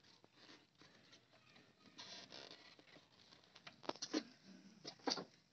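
Hands working wiring and plastic fittings on a motorbike beside its battery: faint rustling and handling noise, with a few sharp clicks and knocks about four and five seconds in.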